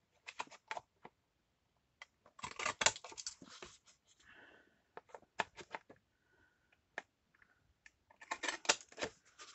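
Paper being handled and rustled, with scattered light taps and clicks, busier about two seconds in and again near the end.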